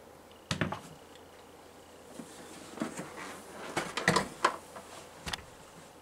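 Plastic parts of an evaporative humidifier being handled on a workbench: a few light knocks and clatters, the densest cluster about four seconds in.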